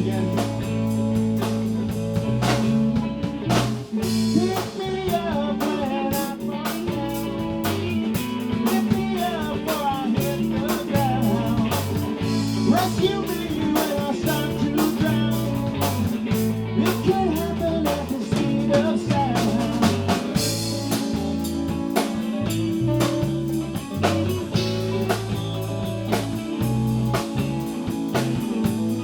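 A band playing a blues-rock song on guitars, bass and drum kit, with a lead line that bends and wavers in pitch over the steady bass and drums.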